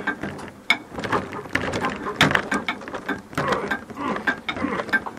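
Ratchet wrench clicking and metal clattering as a jammed engine is worked over by hand, with a few strained grunts. The engine will not turn, which the owner takes for something busted inside, perhaps a broken or stripped crankshaft.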